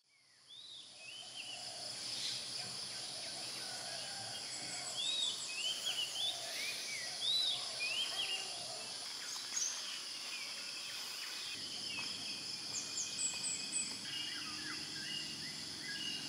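Forest ambience: a steady high-pitched insect drone, with birds repeatedly giving short chirps that rise and fall over it, busiest in the middle.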